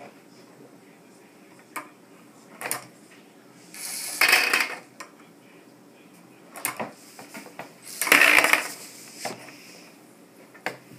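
Lego Mindstorms NXT ball-sorting robot at work: two short bursts of whirring and rattling, about four and eight seconds in, as a ball rolls down the Lego ramp and an NXT motor turns to send it into its tray. Light plastic clicks and knocks come in between.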